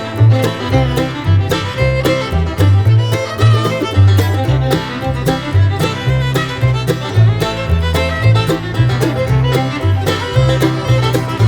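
Background music with a steady beat and a bass line that steps from note to note.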